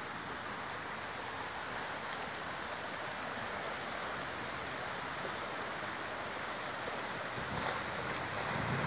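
Steady rush of a shallow stream flowing over a rocky ford, with wind noise on the microphone, growing louder near the end.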